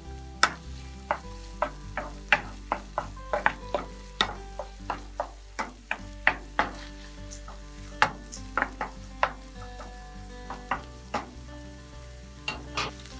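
Chopped red onion and chicken livers frying in oil in a nonstick pan: a steady sizzle broken by irregular sharp pops, about two a second, as a wooden spoon stirs them.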